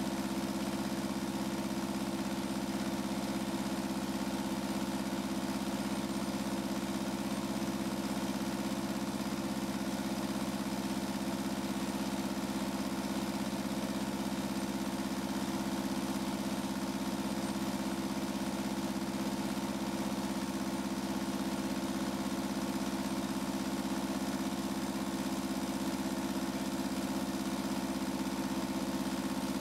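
Kubota V2203 four-cylinder diesel engine running at a steady speed on a test stand, an even hum that holds unchanged throughout.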